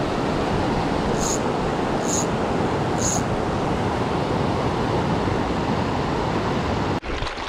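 Steady rush of whitewater from a mountain stream's rapids and cascade, with three short high-pitched chirps about a second apart in the first few seconds. The rushing cuts off suddenly near the end.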